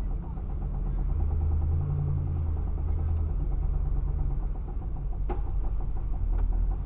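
Pontiac Trans Am engine running with a fast, even ticking over its rumble, and two sharp clicks near the end. The owner traced the noise to a broken rocker, with the pushrod banging on the rocker cover.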